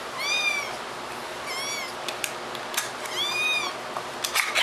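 A kitten meowing three times: short, high-pitched, arching meows about a second and a half apart, with a few small clicks toward the end.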